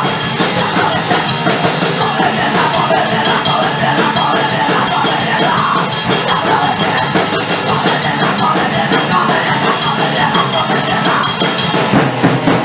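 Hardcore punk band playing a loud, dense passage of their song: distorted electric guitars and bass over a fast, driving drum kit.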